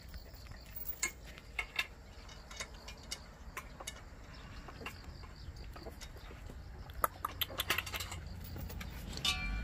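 Small scattered clicks, taps and rustles of a litter of white baekgu puppies stirring and nuzzling on a mat, quiet overall, with a quicker run of clicks a little after the middle. A short high cry starts near the end.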